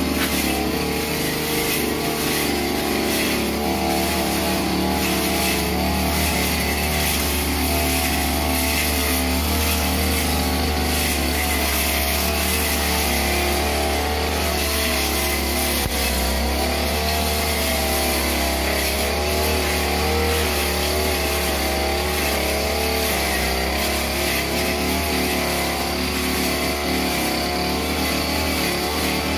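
Backpack-mounted 328 two-stroke brush cutter running at high speed, its engine pitch wavering up and down as the blade cuts through tall weeds.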